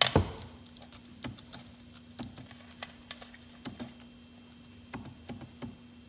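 Small scattered clicks and taps of wire leads and clips being handled and touched to a car power-antenna motor's connector, with a sharper clack at the very start. A faint steady hum sits underneath.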